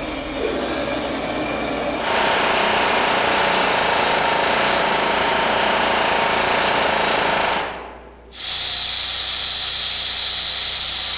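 Hand-held pneumatic air hammer working loudly and continuously against a steam locomotive's riveted steel boiler shell. It breaks off briefly about eight seconds in, and a steadier air-tool sound with a thin high whine follows.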